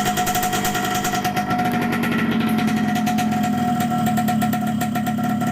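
Freshly assembled Yamaha RX-King two-stroke single-cylinder engine with a Thai YP2 block, idling steadily. Its speed rises slightly about a second and a half in. It runs very smoothly.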